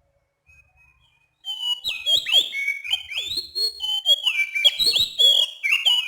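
Oriental magpie-robin (kacer) singing: a fast run of clear, rhythmic whistled notes that slide up and down, with sharp clicking notes mixed in, starting about a second and a half in.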